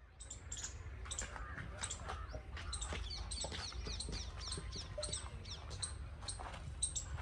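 Many small birds chirping, with short quick downward-sweeping chirps repeating throughout, over a low steady rumble.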